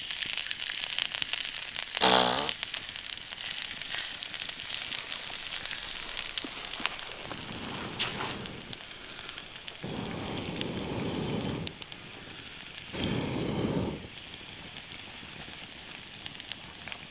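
Marinated chicken sizzling steadily on a hot stone slab heated by a wood fire. About two seconds in there is one loud, short squeal that falls in pitch, and later two duller rushing sounds.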